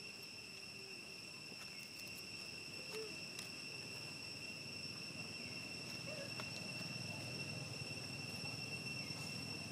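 Insects droning steadily at a high, unchanging pitch, with a few faint clicks.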